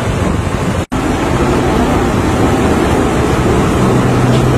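Steady waterfront noise with a low engine hum that becomes steady in the second half. The whole sound drops out for an instant about a second in.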